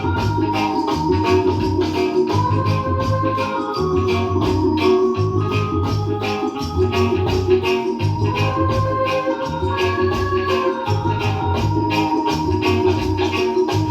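Instrumental reggae music with a steady beat, a pulsing bass line and an organ playing held chords and a melody line.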